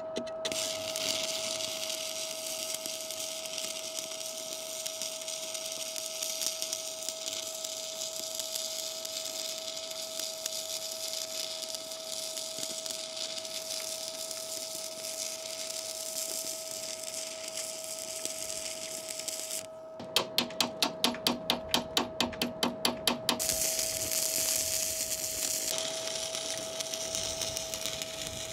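Stick (manual metal arc) welding with 3.2 mm 312 dissimilar-metal rods at about 110 amps, joining a stainless chain plate to a mild-steel deck: a steady crackling, frying arc hiss with a faint steady whine underneath. About two-thirds of the way in the arc stops and a quick run of about fifteen evenly spaced taps follows, after which the crackling arc resumes.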